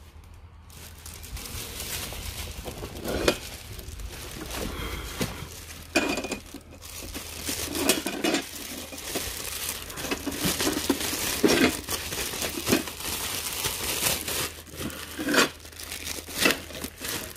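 Clear plastic bag crinkling and rustling as it is handled and pulled over a tractor seat. Several sharper crackles and knocks stand out along the way.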